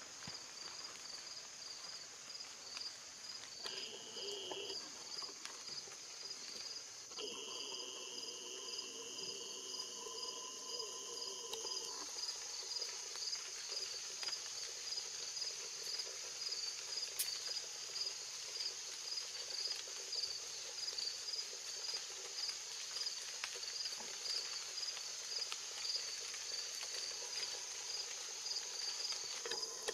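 Insects chirping in a steady, rhythmic pulse, with a continuous higher insect hiss above it. A faint steady hum comes in briefly about 4 seconds in and again from about 7 to 12 seconds.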